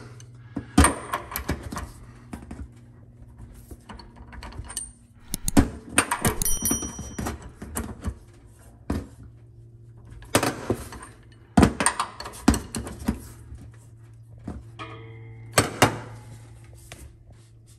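Ratchet wrench driving the new anode rod's hex head tight into the top of a tank water heater: short runs of sharp ratchet clicks and metal knocks as the handle is swung back and forth, over a steady low hum.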